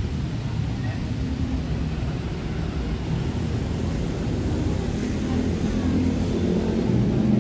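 Road traffic: a motor vehicle engine running with a low rumble, growing louder near the end as it comes closer.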